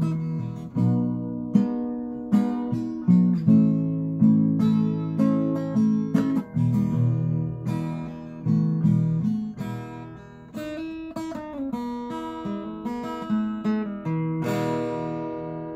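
Background music: an acoustic guitar playing a picked and strummed melody, note after note ringing and fading.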